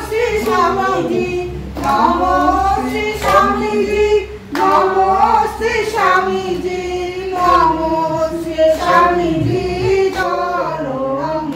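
Women singing a devotional song together, with hand clapping.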